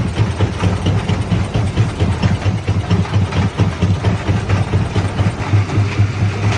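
Primary jaw crusher running and breaking black stone: a heavy low hum that pulses rapidly, overlaid with a continuous clatter of rock.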